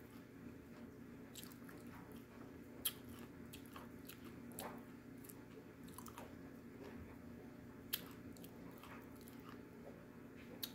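Someone chewing a piece of edible clay: soft crackles with a few sharp crunches, the loudest about three seconds in and again about eight seconds in.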